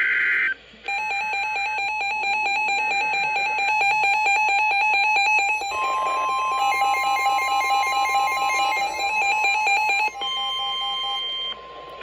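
Weather alert radios going off for a severe thunderstorm warning. It opens with the last half-second of the warbling SAME data header. Then comes a rapid, evenly pulsed electronic alarm beeping. About six seconds in, the steady 1050 Hz NOAA Weather Radio warning tone joins it, along with a second beep pattern.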